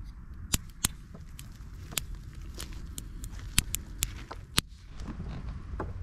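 Small kindling fire of split wood sticks crackling, with scattered sharp pops and clicks, about a dozen, as sticks are leaned into a teepee over the flame, over a steady low rumble.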